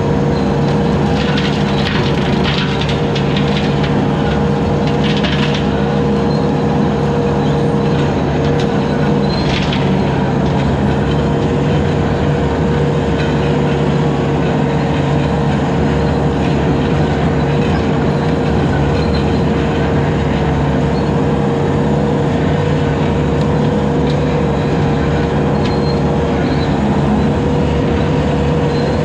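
Bobcat 873 skid steer's diesel engine running steadily under load, driving a hydraulic 72-inch brush cutter whose spinning blade adds a steady whine. A few short bursts of crackling come in the first ten seconds as brush is cut.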